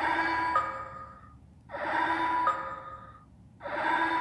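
Toy robot's newly replaced speaker playing an electronic sound effect three times, each a sudden hissy burst with steady tones that step up in pitch about half a second in, then fade out over about a second.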